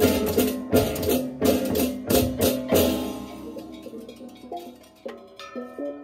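Balinese baleganjur gamelan playing loud, rapid crashing cymbal strokes over drums and pitched gong tones. The ensemble stops about three seconds in, leaving ringing tones and a few softer pitched gong strikes.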